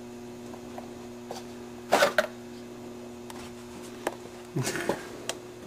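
Valve cover being lifted off a VW 2.0L engine's cylinder head: a sharp knock about two seconds in and a short clatter of knocks near the end, over a steady low hum.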